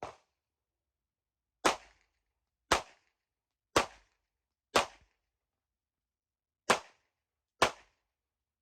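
Handgun shots fired at an even pace: six sharp reports about a second apart, with a longer pause after the fourth, and a fainter shot right at the start.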